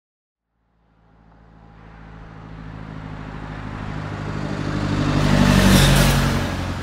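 A car approaching and driving past: engine hum and tyre noise rise out of silence, peak about six seconds in, then start to fade.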